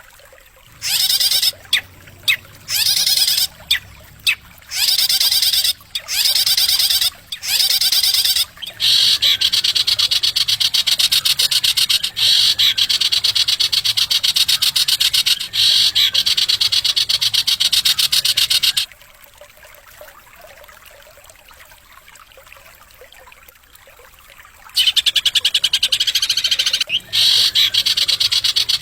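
A champion cage songbird's song on a masteran training track: sharp, high-pitched phrases in short separate bursts, then a long, fast, buzzing trill of about ten seconds. After a pause of several seconds, another fast trill starts near the end.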